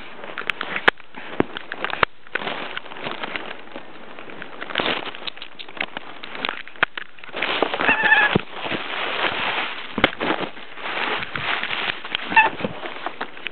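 A cat scuffling and scrabbling right against the microphone as it hunts a moth: rustling and sharp knocks. It gives a short high chirp about eight seconds in and another near the end.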